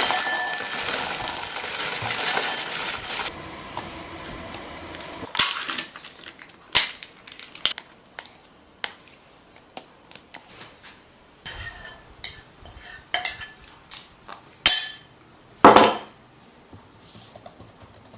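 A tap running for about three seconds, then shutting off, followed by scattered clinks and clatters of dishes and cutlery being handled, with two louder knocks near the end.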